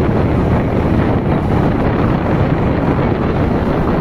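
Wind buffeting the microphone over a steady low rumble of a moving vehicle, heard while riding on an open vehicle along a road.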